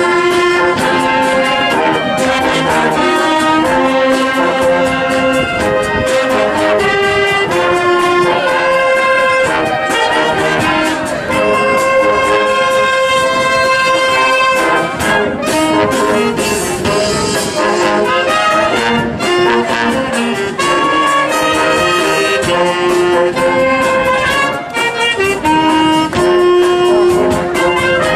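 Town wind band (philharmonic) playing live, brass instruments leading, in steady sustained notes that move from one pitch to the next.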